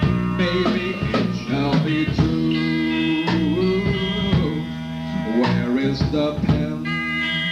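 Lo-fi rock band playing an instrumental passage: electric guitar with held and bending notes over a drum kit.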